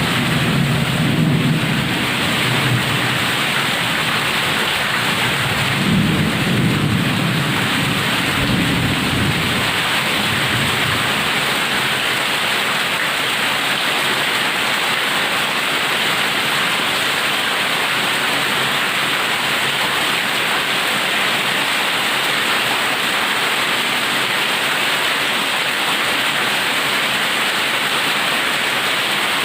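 Heavy rain falling steadily, with thunder rumbling low in the first ten seconds or so, swelling twice before fading under the rain.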